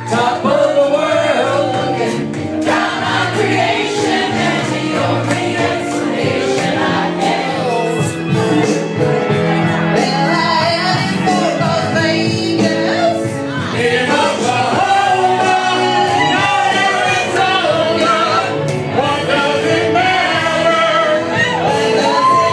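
Music with people singing along: several voices singing in turn into a handheld microphone, with others joining in.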